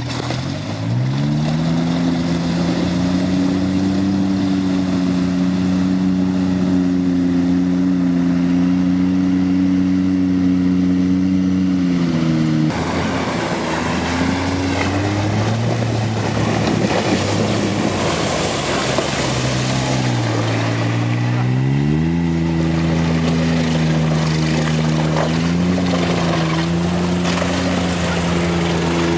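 Engine of a Tinger tracked amphibious ATV revving up and running steadily under load. Midway comes a long stretch of splashing and churning water and mud as it ploughs through the flooded track. Then the engine revs rise again and hold.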